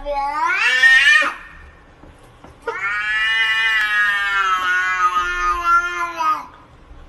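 Domestic cat yowling twice in long, drawn-out calls. The first rises in pitch and breaks off about a second in. The second starts near the three-second mark and is held steady for nearly four seconds before it drops away.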